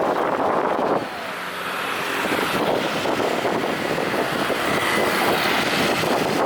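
A motor vehicle engine running close by amid street noise, its drone standing out for a couple of seconds about a second in.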